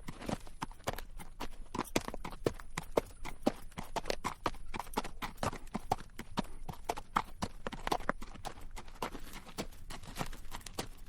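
Horse's hooves clip-clopping at a walk over rocky dirt trail, with dense, irregular clatter, together with the rattle of bridle and tack.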